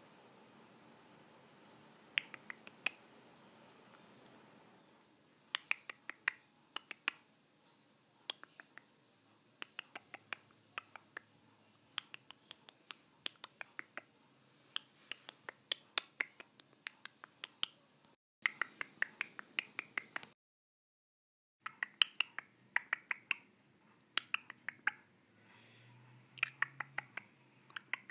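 A long series of short, sharp clicks and taps, irregular and often in quick clusters. The sound cuts out completely for a moment about two-thirds of the way through.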